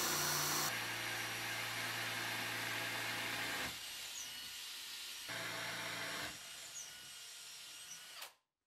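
Cordless drill spinning a diamond-tipped tile bit into a ceramic wall tile at the grout line, on plain rotation with no hammer action. The motor runs at a steady pitch, drops quieter twice, and stops shortly before the end.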